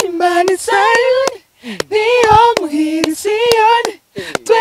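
A woman singing a short repeated phrase of held, slightly wavering high notes with little or no accompaniment, with sharp clicks between the notes.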